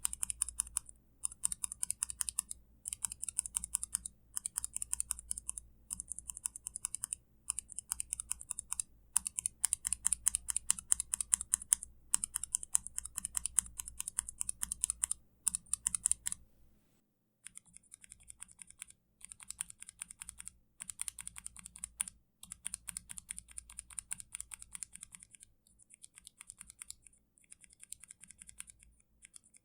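Kailh mechanical keyboard switches on a switch tester pressed in rapid runs of clicks with short gaps between them. About 17 seconds in there is a brief pause, after which the presses are quieter.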